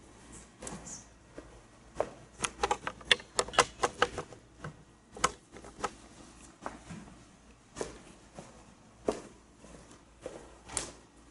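Scattered sharp clicks and knocks in a quiet room. There is a quick run of a dozen or so about two seconds in, then single knocks every second or so, typical of people shifting, handling things and walking about.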